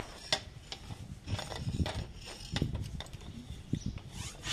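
Bicycle hand pump being worked, pushing air through its hose into a large rubber balloon, heard as irregular rubbing and clicks that grow into loud, even pump strokes right at the end.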